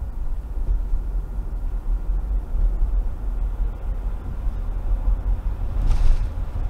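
Steady low rumble of a car driving on wet pavement, heard from inside the cabin, with a brief hiss near the end.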